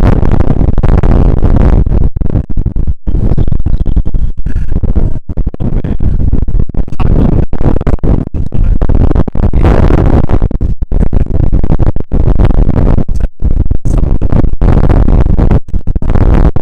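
Strong wind buffeting a Rode VideoMicro with no windshield, recorded on an iPhone X: a loud, deep rumble right up near clipping, broken by many brief dropouts.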